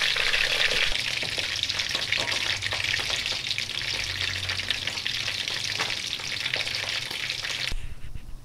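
Whole duck deep-frying in hot oil in a wok: a dense, steady sizzle and crackle, a little louder in the first second. It cuts off suddenly near the end.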